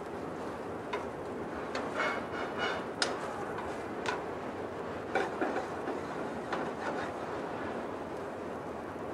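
Flour-dusted shrimp sizzling in hot olive oil in a frying pan as they brown. Several short clicks and clinks of utensils, bunched around two, five and seven seconds in.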